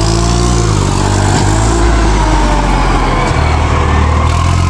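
Swaraj tractor's diesel engine running as the tractor drives across the grass, its pitch dropping in the first second and changing again as the throttle is worked.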